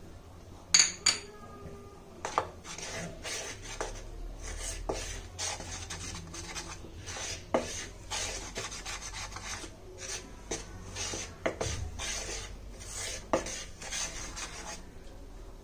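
A spoon stirring and scraping dry flour and spice powders around a bowl, with a ringing metal clink about a second in and occasional knocks against the bowl.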